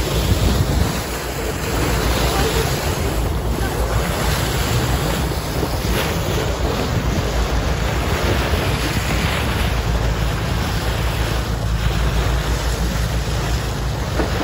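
Sea water rushing along the hull of a boat under way, with wind buffeting the microphone and a low steady rumble underneath.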